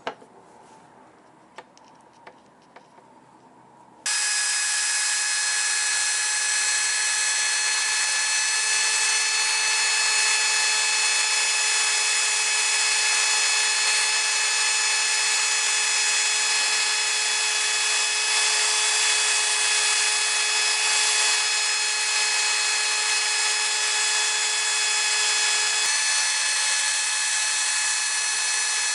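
A few light clicks, then about four seconds in an electric drill starts and runs at a steady speed with a high whine, driving a stirring paddle through thick, high-viscosity adhesive in a plastic cup. Its note changes slightly near the end.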